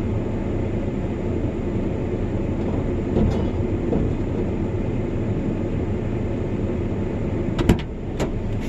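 Steady low rumble of a running motor vehicle, with a few sharp clicks near the end.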